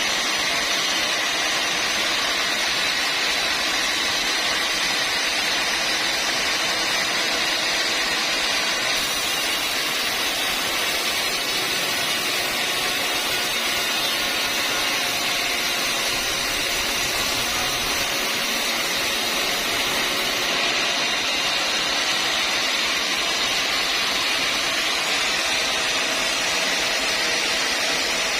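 Sawmill machinery running steadily, a dense even mechanical noise with no strikes or pauses; extra high hiss comes in about nine seconds in and drops away about twenty seconds in.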